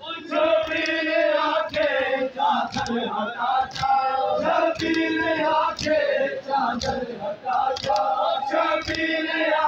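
A crowd of male mourners chanting a noha (Muharram lament) in unison, with sharp slaps about once a second in time with the chant, the rhythm of matam chest-beating.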